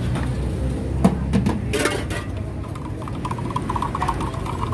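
Sharp knocks and a brief noisy rush of utensils being handled at a street coffee stall, followed from about three seconds in by a warbling steady tone, over a low traffic rumble.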